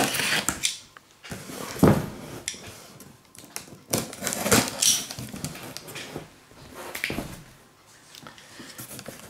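A snap-off utility knife slitting plastic packing tape along the seams of a cardboard box, in several short scratchy strokes with pauses between them.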